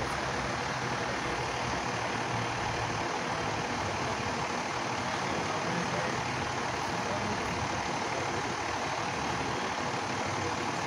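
Steady hum of a vehicle engine idling, with no change in speed.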